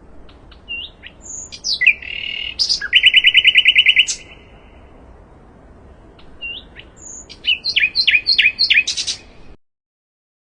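Sikatan londo flycatcher singing two bright, high phrases: a rapid trill of repeated notes, then a run of quick falling slurred notes. The recording cuts off suddenly near the end.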